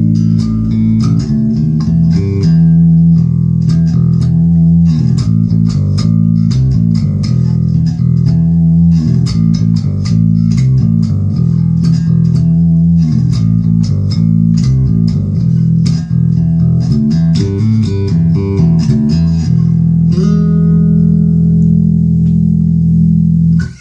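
Alembic Series 2 electric bass played solo, a busy line of quick plucked notes and chords with its active filters set mostly closed. It ends on a held note that rings for a few seconds and is damped suddenly near the end.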